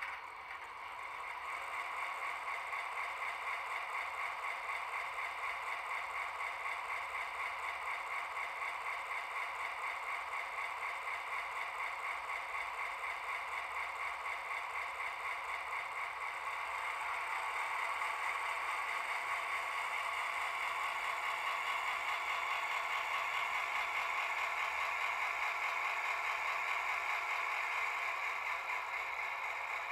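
Sound decoder in an H0 HAG model of the Swiss Bm 4/4 II diesel locomotive, playing its diesel engine sound through the model's small speaker. The engine sound builds up over the first two seconds and runs steadily with a fast throb. It grows louder a little past halfway as the locomotive moves off.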